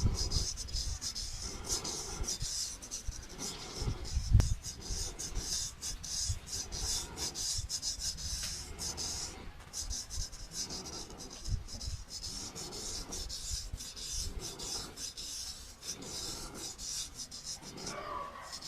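Straight razor scraping across stubble and skin in quick, short, scratchy strokes, with a brief pause about nine and a half seconds in.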